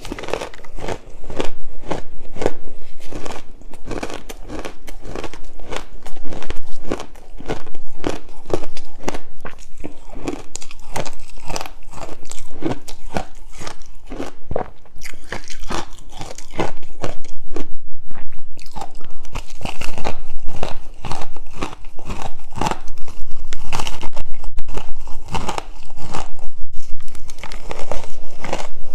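Close-miked crunching of ice chunks being bitten and chewed, a rapid run of sharp, irregular crunches several times a second.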